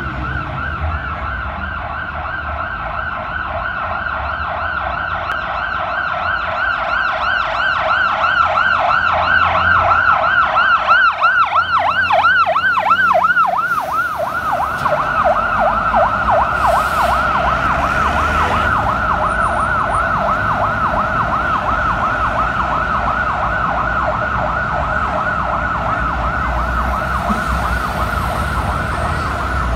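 Fire engine's electronic siren in yelp mode, a fast repeating up-and-down wail on a Mercedes-Benz Atego pumper. It grows louder as the truck approaches, passes close about 14 seconds in, then carries on as the truck moves off, with the truck's engine and street traffic rumbling underneath.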